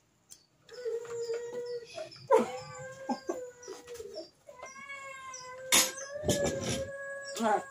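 An animal howling in a long, drawn-out cry on one steady pitch, breaking off briefly a few times. A few sharp knocks cut through it, and faint high ticks repeat about three times a second underneath.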